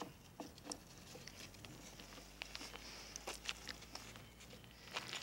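Faint scattered taps and scuffs of footsteps on a dirt yard, over a faint low steady hum.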